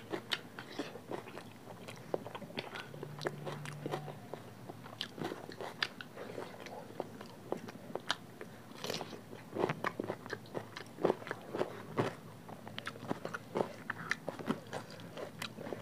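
Close-miked eating by hand: wet chewing, smacking and crunching of curry, rice and raw vegetables, with a crisp crunch about nine seconds in as a raw cucumber is bitten.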